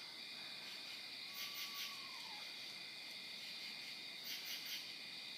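Night insect chorus: a steady high trill, with true katydids calling in two short groups of three or four pulses, about a second and a half in and again near the end. A faint short falling call sounds at about two seconds.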